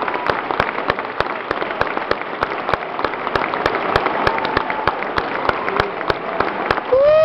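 Audience applauding: dense, steady clapping with a few faint whoops. Near the end, a loud cheer from someone close to the microphone begins, rising and then falling in pitch.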